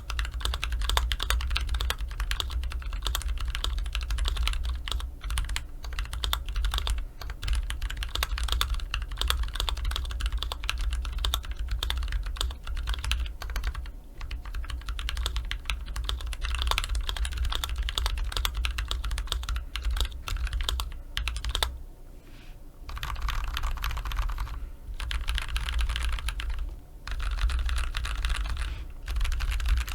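Continuous fast typing on a custom mechanical keyboard: Holy Panda POM tactile switches lubed with Krytox 205g0, in a foam-filled KBD67 MKII with a brass plate and GMK keycaps. A low desk thud runs under the keystrokes. The typing eases briefly about two-thirds of the way through, then resumes.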